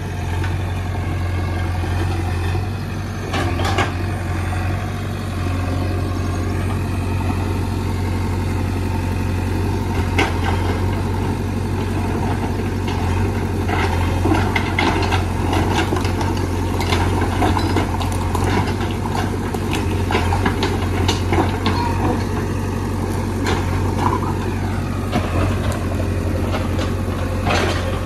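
JCB backhoe loader's diesel engine running steadily as the backhoe arm digs into rock and earth. Rocks knock and clatter now and then, most sharply about four seconds in, about ten seconds in, and near the end.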